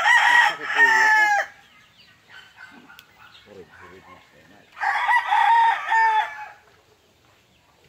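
Rooster crowing twice, each crow about a second and a half long, the second starting about five seconds in. A single sharp click sounds between the crows.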